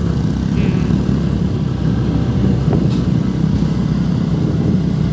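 Motor scooter riding along: a steady, loud low rumble of engine and road noise.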